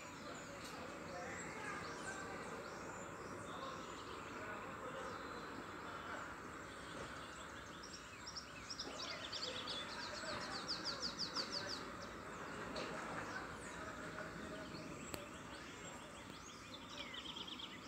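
Outdoor background noise with birds calling, and a fast, high trill of rapidly repeated notes about nine seconds in and again near the end.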